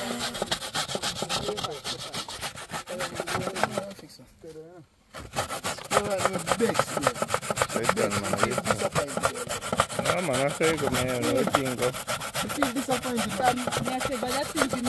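Coconut flesh being scraped: fast, rhythmic rasping strokes that stop for about a second around four seconds in, then carry on.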